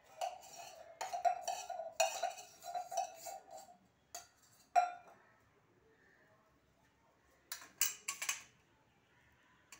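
A steel spoon clinking and scraping inside a small stainless steel mug, the mug ringing with each knock, for about four seconds, with two more single clinks after. Near the end come a few quick scrapes of the spoon in the hard wood apple shell as the pulp is mixed.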